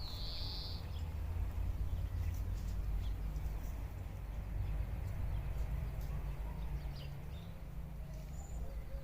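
Outdoor nature ambience: a steady low rumble, with a short high bird call in the first second and a few faint chirps later.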